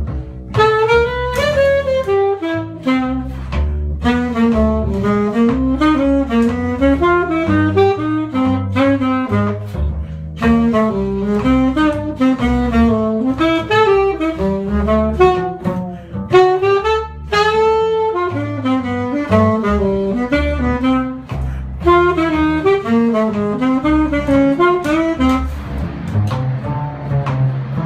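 Jazz practice: a solo melodic instrument plays quick bebop arpeggio lines, each chord tone approached chromatically, over a walking-bass backing. Near the end the solo line drops out and the backing carries on.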